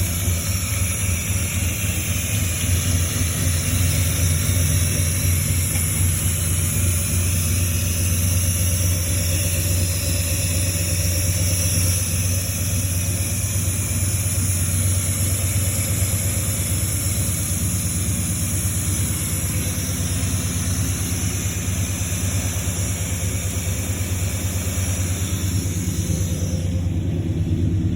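Car engine idling steadily, its exhaust leak repaired.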